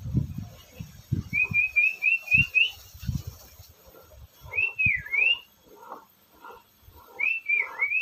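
Sooty-headed bulbul calling: a quick run of six short rising whistled notes, then two swooping whistles that dip and rise again, one about halfway through and one near the end. Low thumps sound under the first half.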